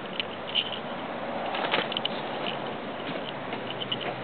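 Stealth 2x2 electric buggy driving over dirt: a steady rough noise from its tyres and motor, with no engine note, rising to a louder rush just under two seconds in. Short high ticks recur throughout.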